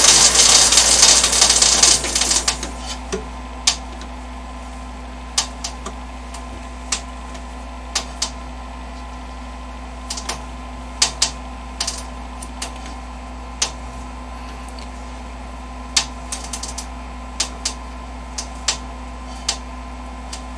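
Lathe spindle running at the end of a light turning pass over an aluminium workpiece, loud for about two seconds and then dying away. After it, the machine hums steadily while sharp, irregular clicks tick out every second or so.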